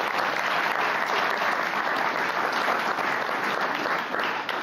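Audience applauding: many people clapping in a dense, steady patter.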